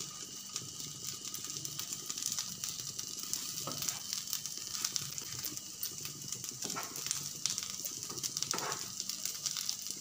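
Sabudana (sago) and potato tikkis sizzling in a little oil on a hot tava, a steady crackling hiss. A wooden spatula clicks against the pan a few times.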